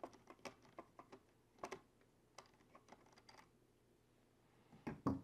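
Light, scattered plastic clicks and taps from handling a small RC truck's hard plastic body while its fake headlight pieces are taken off, with a louder pair of knocks near the end.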